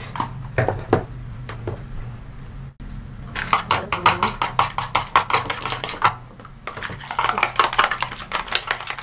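A spoon beating a raw egg with salt and pepper in a plastic bowl: rapid clicking strikes against the bowl. They start about three seconds in, stop briefly around six seconds, then resume. A few separate light taps come first.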